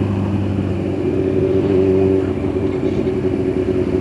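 Motorcycle engine running at steady revs while riding, with wind and road noise; the pitch shifts slightly about two seconds in.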